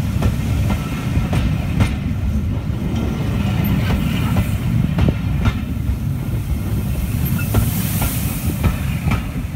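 Railway passenger coaches rolling past at close range: a steady low rumble, with the steel wheels clicking over the rail joints every half second or so.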